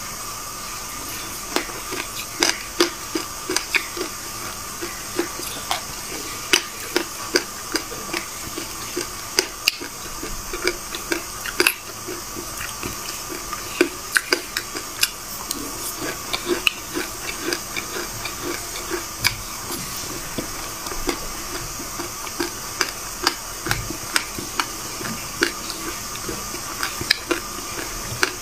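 Close-miked eating: dry black sesame seeds chewed and crunched, many short sharp crackles at an irregular pace over a steady hiss.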